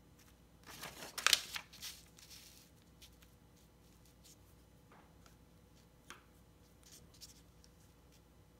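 Sheets of printer paper being handled and laid down on a desk, rustling for about two seconds, followed by a few faint light taps and brushes.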